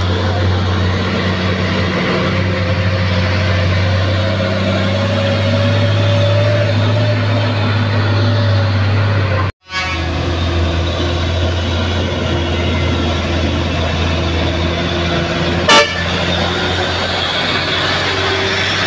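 Heavy trucks' diesel engines running with a steady low drone as a tanker truck approaches and passes. One short horn toot comes about 16 seconds in, and the sound drops out for a moment about halfway through.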